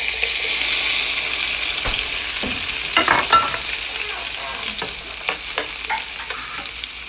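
Sliced red bell peppers and onions hitting a hot pan, setting off a loud sizzle that peaks about a second in and then slowly dies down. From about three seconds in come the clicks and scrapes of a utensil stirring them.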